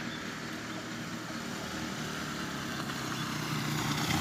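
Motorcycle engine running as it rides up the slope toward the microphone, growing steadily louder through the second half, with other vehicle engines running further off.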